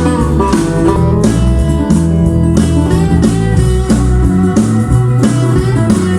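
Bluesy guitar-led instrumental music, played back through a 1970s stereo receiver and speakers.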